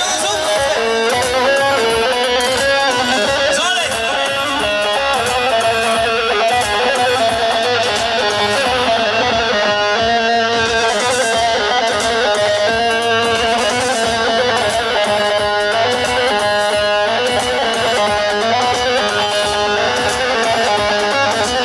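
Instrumental music with an ornamented melody played on an amplified plucked string instrument, running steadily without singing.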